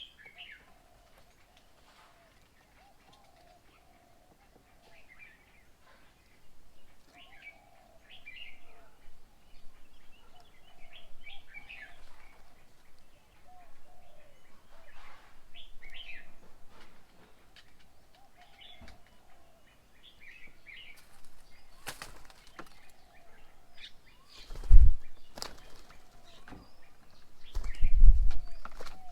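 Birds chirping and calling at a bird table, with short high chirps repeating over a lower warbling call, starting a few seconds in. Near the end there are two loud low thumps about three seconds apart.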